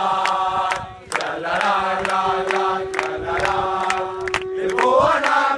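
Crowd singing a Basque song together in unison outdoors, with a short break about a second in and then one long held note.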